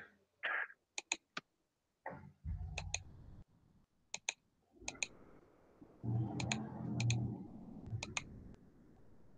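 Computer mouse clicking, mostly in quick pairs, a handful of times. In between there are stretches of low, muffled rumbling noise.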